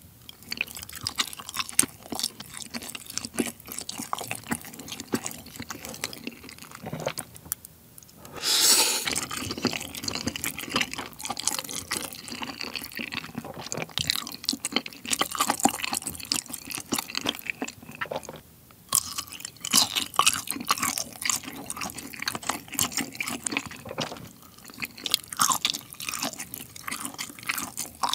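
Close-miked wet chewing of soft rice cakes and sausage in a sticky spicy sauce: smacking mouth sounds with many small clicks, and a louder, noisier stretch about nine seconds in.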